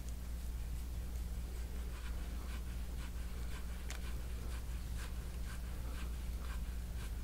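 A handheld soft-tissue scraping tool dragged in short strokes over the bare skin of a back, a dry scratching that repeats about twice a second from about two seconds in.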